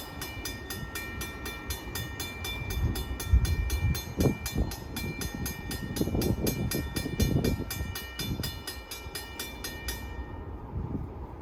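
Freight train rumbling past, with a bell ringing rapidly at about four strikes a second that stops near the end. A few louder clanks come through about three and four seconds in.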